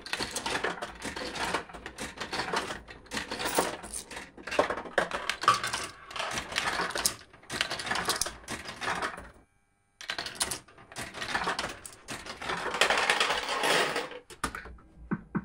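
Bully for You fruit machine clattering with rapid mechanical clicks, which cut out briefly about two-thirds of the way through.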